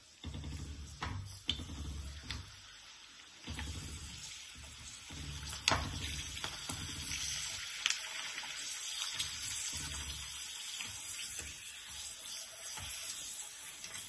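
Dried tomato rice papad deep-frying in hot oil in a wok: a steady sizzle with a few sharp crackles and pops.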